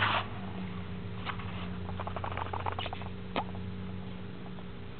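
Scattered small clicks and rustles of a handheld camera being fumbled by hand, over a faint low steady hum that fades out near the end.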